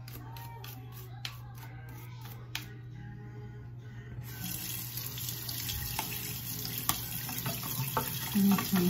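Faint background music, then a tap turned on about four seconds in, with water running into the sink and splashing, getting louder toward the end. A steady low hum runs underneath.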